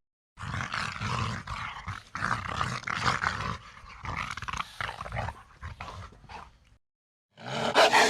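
Velociraptor creature sound effects: a long, rough vocalisation made of many short pulses that trails off after about six and a half seconds. After a short gap, a louder pitched raptor call begins near the end.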